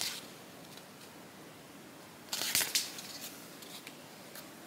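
Handling noise from a floss organizer card and skeins of embroidery floss: a short rustling, scraping cluster with a few light clicks about two seconds in, then faint rustles.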